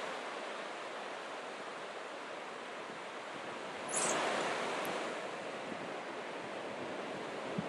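Ocean surf washing on a beach as a steady hiss, swelling briefly louder about four seconds in.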